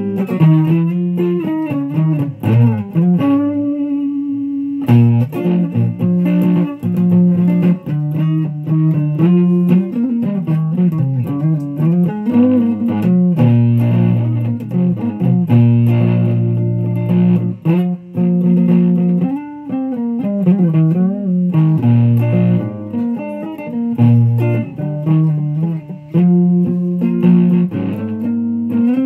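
Electric guitar played through a Fuzz Face fuzz pedal running on a run-down battery: a continuous run of single notes with many string bends and glides.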